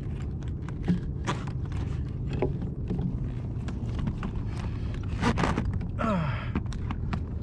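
Scattered clicks and knocks of hands handling an insulated fish bag on a plastic fishing kayak, over a steady low rumble. About six seconds in, a short sound falls in pitch.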